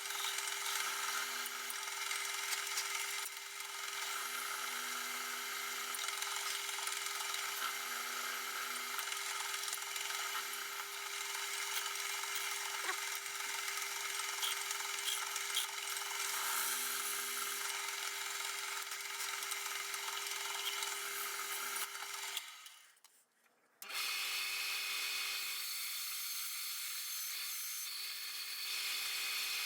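Electric grinder running with a steady motor hum while steel is ground against it, with a harsh rasping grind. The sound cuts out abruptly for about a second, roughly 23 s in, then resumes.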